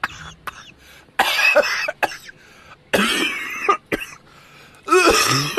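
A person coughing three times, each a short rough burst, about a second and a half to two seconds apart.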